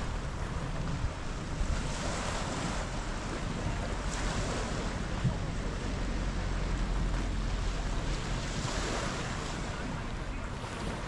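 Waves washing against the lakeshore, with wind blowing on the microphone; the rush of water swells a few times.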